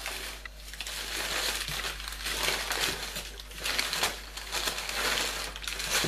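Packing paper crinkling and rustling in irregular handfuls as a parcel is unpacked.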